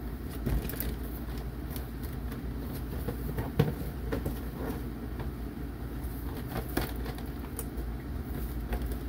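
Plastic toy parts and packaging being handled: light rustling and scattered clicks, with a sharper click about a third of the way in and another past the middle, over a steady low hum.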